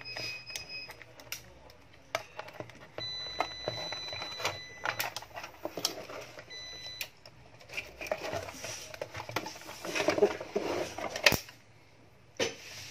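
Clicks, knocks and rustles of an inverter circuit board being handled on a workbench. A steady high tone sounds for about two seconds a few seconds in and briefly again soon after, and one sharp loud click comes near the end.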